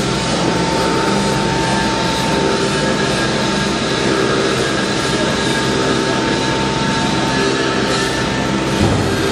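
Railway locomotive turntable turning, its drive and running gear giving a steady mechanical hum with a constant high whine over it. There is a brief knock near the end.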